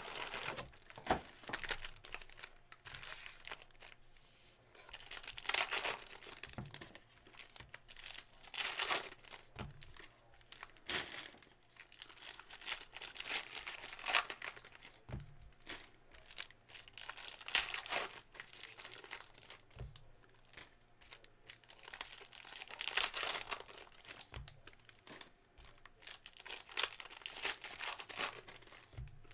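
Foil wrappers of Panini Prizm trading-card packs being torn open and crinkled by hand, in irregular bursts of rustling every few seconds.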